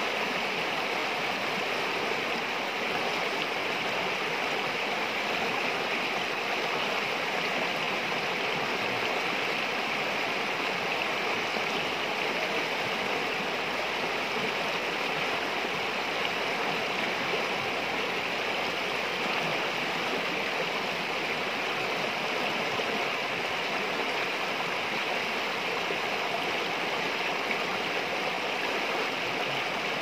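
Fast, murky stream water rushing over rocks in small rapids, a steady unbroken rush.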